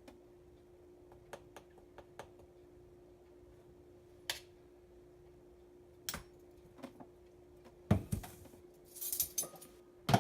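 Kitchen utensils clicking and tapping: a measuring spoon and tools knocking lightly against bowls and containers while pie ingredients are measured out. Scattered light clicks give way to a louder clatter and rustle near the end, over a faint steady hum.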